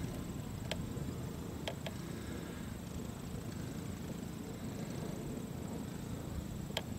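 Light floatplane's engine running at low power, a steady low rumble as the plane slides across the grass on its floats after touching down. A few sharp clicks sound over it.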